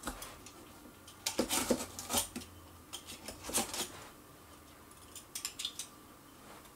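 A stapled cardboard box being worked open by hand: short bursts of scraping, rustling and clicks from the flaps and staples, in three or four separate spells.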